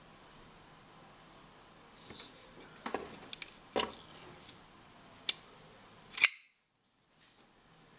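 Front-flipper folding knife on a caged-bearing pivot: a run of light metallic clicks as the blade is folded shut, then one loud, sharp snap about six seconds in as the blade is flipped open and locks.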